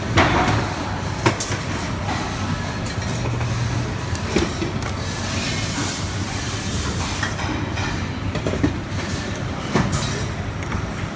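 Steady factory machinery noise with a low hum, and about five sharp clicks from pliers working thin lead wires in a hub motor stator, the loudest right at the start.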